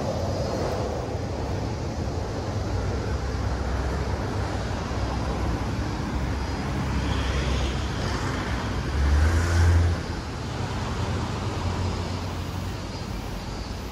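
City street traffic noise: a steady hum of passing road vehicles, with a louder low rumble swelling for about a second near the middle.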